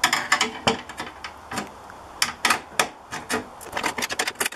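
Hammer striking a screwdriver to punch a knockout out of a sheet-metal breaker panel box. It makes a run of irregular, sharp metallic knocks, with some strikes coming in quick succession.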